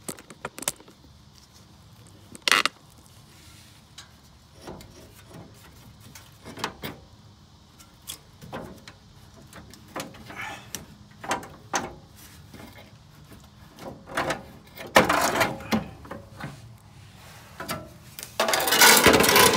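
Scattered clicks and knocks as the removed underbody shield of a Lexus GX470 is handled, ending in a loud scrape lasting about a second near the end.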